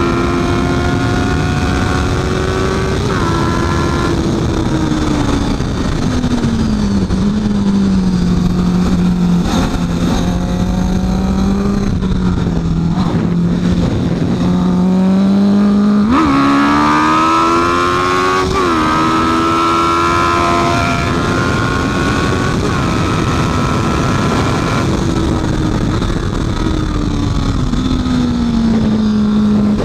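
Honda CB650F's inline-four engine ridden hard in a race: high revs that dip on an upshift, then fall away about six seconds in and run lower for a while. It climbs again through quick upshifts around the middle and sinks once more near the end.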